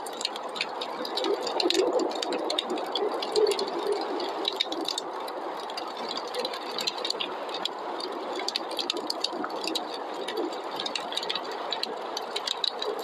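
Wood fire crackling in a fireplace, with many small irregular snaps and pops over a steady rushing noise of snowstorm wind.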